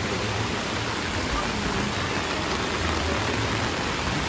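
Heavy rain falling steadily on a flooded street and on an umbrella overhead: an even, unbroken hiss.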